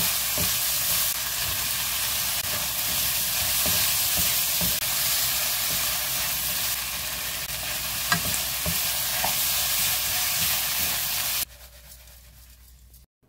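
Squid, onions and chili-pepper sauce sizzling in a hot frying pan as they are stir-fried with a wooden spatula, with a few short knocks and scrapes of the spatula on the pan. The sizzling stops suddenly near the end.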